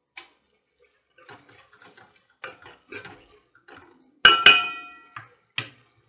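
A steel ladle stirs chunky vegetables in a metal pot with soft scraping clicks. About four seconds in it knocks against the pot twice with loud, ringing metallic clanks, followed by two lighter knocks.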